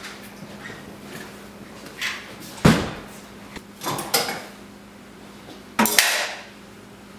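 Tools and metal parts clanking and knocking as the primer valve and its fittings are put back together, in a few separate knocks and clatters, the sharpest about two and a half seconds in, others about four and six seconds in. A faint steady hum runs underneath.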